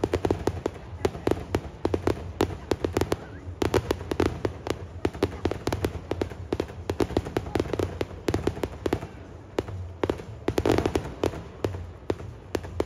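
Aerial fireworks launching and bursting in quick succession: a dense, unbroken run of sharp bangs and crackles, several a second.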